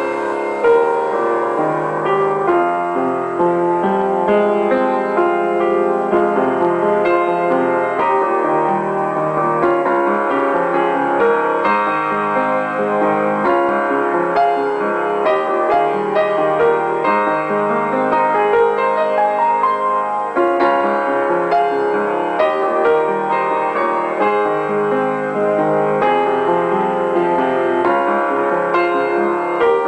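Instrumental piano music, a continuous run of notes.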